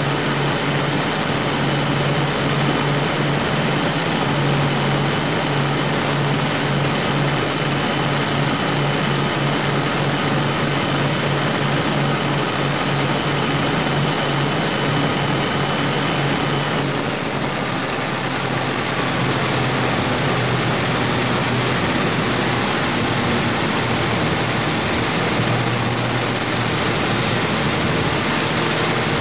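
Twin Scania 12-litre six-cylinder diesel engines of a high-speed prototype boat running steadily under power, their deep drone buried in a loud, even rush of noise.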